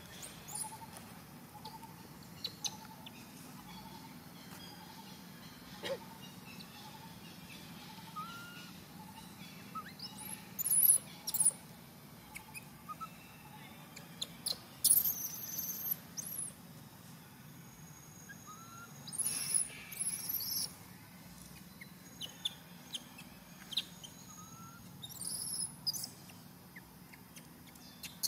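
Short, very high-pitched chirping calls from a small animal, coming in clusters a few seconds apart, over a faint steady outdoor background with fainter repeated chirps.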